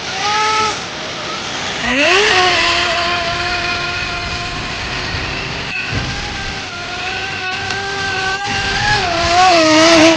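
Small high-revving nitro engine of a Blizzard tracked snow vehicle. It blips briefly, then revs up about two seconds in and runs at high speed with a high, fairly steady pitch, wavering up and down near the end.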